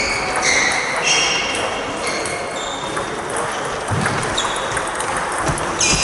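Table tennis balls clicking off bats and tables during rallies at several tables, with repeated short high squeaks and a dull thump about four seconds in.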